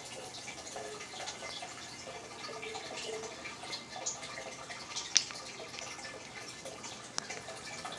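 Aquarium water bubbling and trickling: a steady patter of small drips and splashes. A sharp click stands out about five seconds in, with a fainter one about two seconds later.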